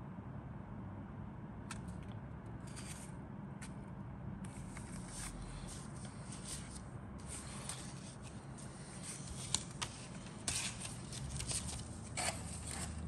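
A stiff paper decal sheet being handled and flexed, rustling and crackling, with louder sharp crinkles in the last few seconds as it is lifted away.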